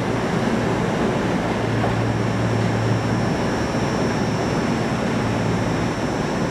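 A train at a station platform: a steady rush of noise over a low, even hum, with no sudden events.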